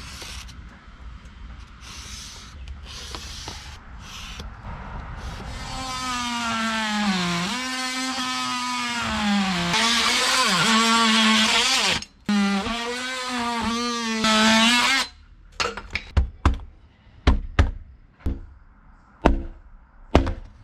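A few short scratching strokes, then a cordless oscillating multi-tool runs, cutting through cedar shake siding, its pitch dipping each time the blade bites, with a brief stop partway through. After it stops, a run of sharp knocks as the cut-out piece of siding is hit out, breaking the shakes.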